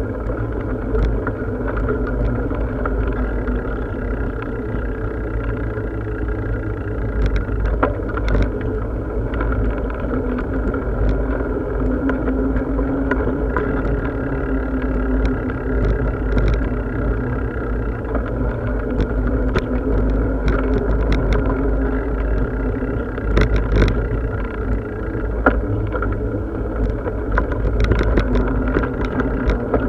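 Steady rumble from riding a bicycle: wind buffeting the microphone and tyres rolling on the path, with scattered small clicks and rattles from the bike.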